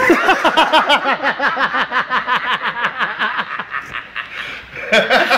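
A man laughing hard: a rapid run of short 'ha-ha' pulses that tails off after about four seconds, with speech starting again near the end.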